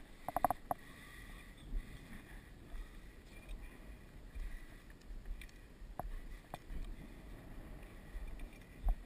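Wind rumbling on the microphone, with faint rustling and a few sharp clicks.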